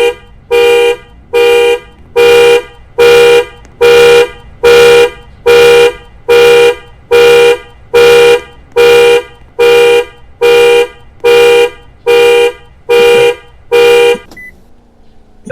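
Panic alarm sounding a car horn in evenly spaced honks, a little more than one a second, then stopping about a second before the end.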